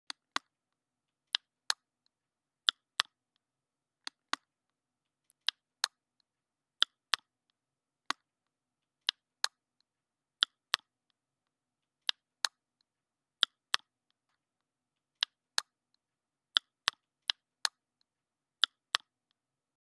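Sharp, dry clicks in pairs about a third of a second apart, one pair every second and a half or so, evenly repeated against dead silence.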